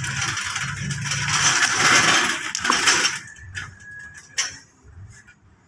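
Metal clinking and scraping as a socket wrench works the lug nuts loose on a car wheel, followed by a few separate sharp clicks.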